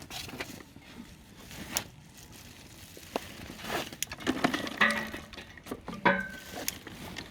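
Dry tinder and small twigs being piled onto a campfire lay, rustling and crackling with irregular snaps, busiest and loudest about four to six seconds in.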